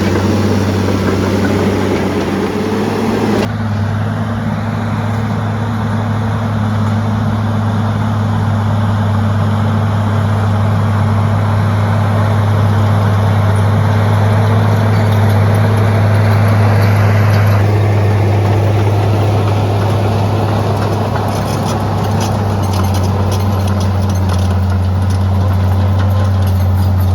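A large engine running steadily with a low hum, its sound changing abruptly about 3 seconds in and again about 17 seconds in.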